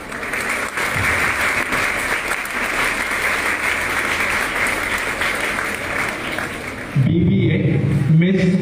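Audience applauding steadily in a hall for about seven seconds, then a loud voice cuts in over the clapping near the end.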